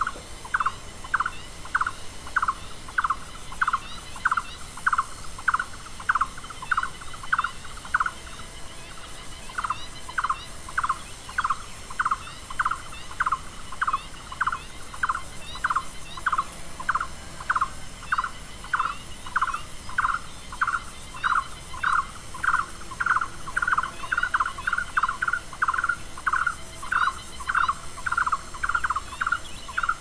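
Green-billed malkoha at its nest: short, sharp calls repeated about twice a second, with a brief pause about a quarter of the way in and a quicker run of calls near the end.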